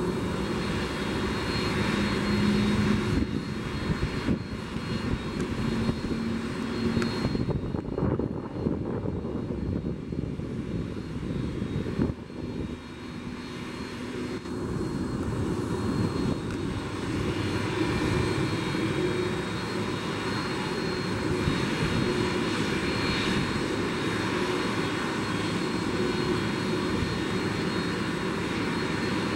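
Airbus Beluga ST's twin General Electric CF6-80C2 turbofans running at low taxi power as the aircraft taxis: a steady rushing hum with a thin high whine over it. It dips somewhat a little before the middle, then steadies again.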